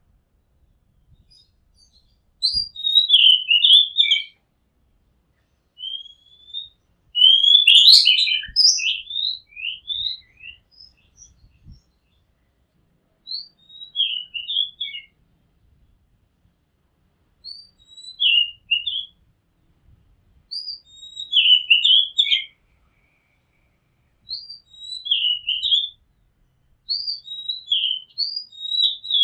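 Oriental magpie-robin singing: short phrases of quick, varied whistled notes, repeated about every three to four seconds with pauses between.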